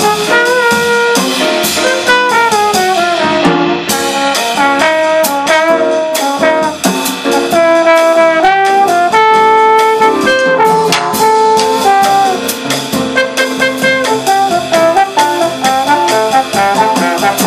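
Trombone playing a jazz solo: a melodic line of quick moving notes with a few longer held ones.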